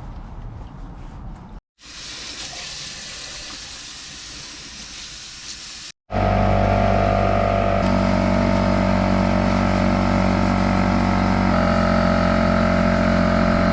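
Water spraying onto the quad as it is rinsed, across a couple of quick cuts. About six seconds in it gives way to louder background music of sustained chords that change every few seconds.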